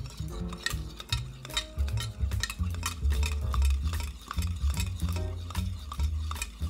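Bar spoon stirring a drink in a copper mug, making many quick, irregular clinks, over soft background music with a bass line.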